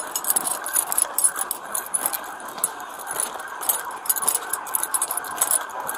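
Police sirens wailing, under the clicking and rattling of an officer's gear and footsteps as he walks.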